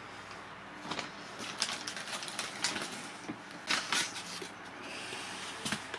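Handling noise from a foam RC model aircraft fuselage being turned over in the hands: faint rubbing with scattered light clicks and taps, a sharper pair of clicks a little under four seconds in.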